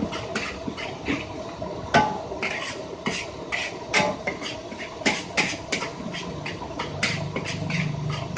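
Metal spatula scraping and tossing fried rice in a wok, about four strokes a second over the frying, with a few sharper clangs of the spatula striking the wok's rim that ring briefly.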